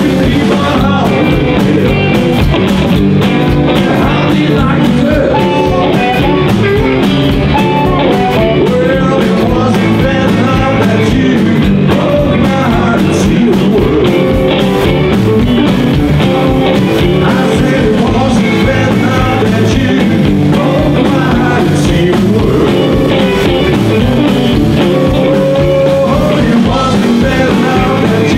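Live rock and roll band playing: two electric guitars, an upright double bass and a drum kit keeping a steady beat, with a man singing.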